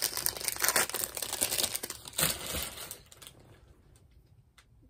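Wrapper of a trading card pack crinkling and tearing as it is pulled open by hand, a dense crackle that dies away about three seconds in.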